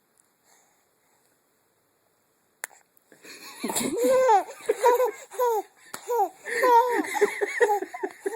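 Baby laughing: a run of high-pitched, squealing giggles that starts about three seconds in, after a short click, and keeps going.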